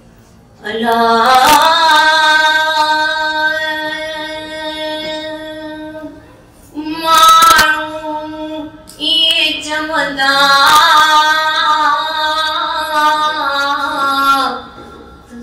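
A woman singing a Sindhi song unaccompanied into a microphone, in three phrases of long held notes with short breaks between them.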